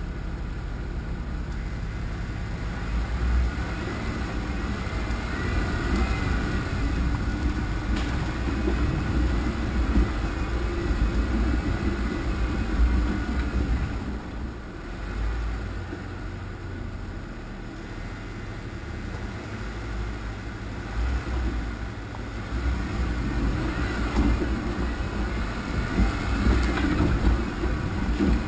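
Off-road vehicle driving slowly over a rocky dirt trail: a steady low engine rumble with uneven jolts and an occasional sharp knock as it crawls over rocks.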